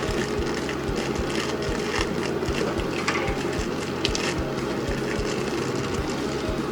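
Background music with a steady, driving beat, and a few sharp clicks from plastic figure parts or packaging being handled, about two, three and four seconds in.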